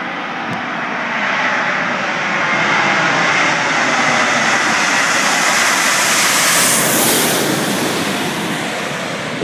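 Boeing 777-200 jet airliner on final approach passing low overhead: a steady jet engine rush with a fan whine, growing louder to a peak about six to seven seconds in, then easing.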